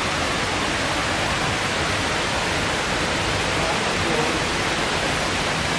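Steady rushing of a waterfall, an even unbroken noise of falling water.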